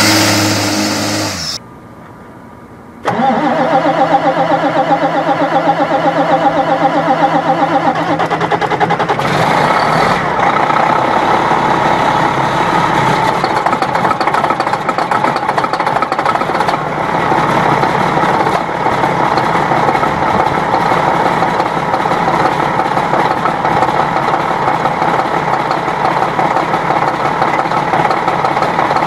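A Prevost H3-45 motorcoach's diesel engine running steadily just after a cold start while pouring heavy smoke; about ten seconds in its sound turns rougher and fuller and stays that way. In the first second and a half, a Cummins diesel bus chassis engine revs with rising pitch, then there is a short quiet gap before the coach engine cuts in.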